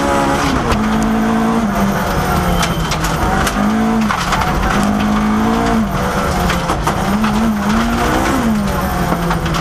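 Ford Escort Mk II rally car's engine heard from inside the cabin, revving hard and dropping sharply several times through gear changes and lifts on a gravel stage. Sharp clicks of gravel strike the car throughout.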